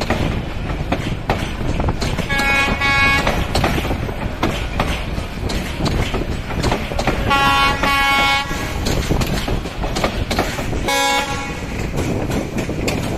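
Passenger train coaches rolling past close by with a steady rumble and rattle of wheels on track, while a train horn sounds in short blasts: two a couple of seconds in, two more in the middle, and one brief toot near the end.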